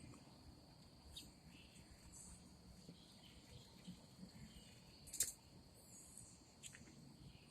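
Quiet outdoor ambience: a faint, steady high-pitched insect drone, with three brief high chirps from the birds at the feeder, the loudest about five seconds in.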